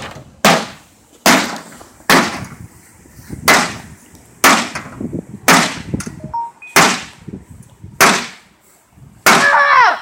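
A bat striking a microwave oven's sheet-metal casing, eight sharp blows about a second apart, each with a brief metallic ring. A person shouts near the end.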